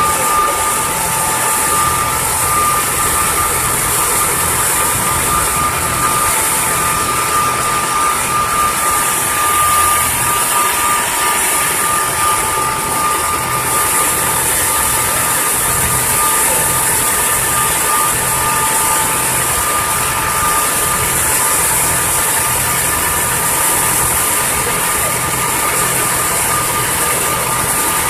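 A river ferry's engine running steadily: a constant drone with a steady whine, over a hiss.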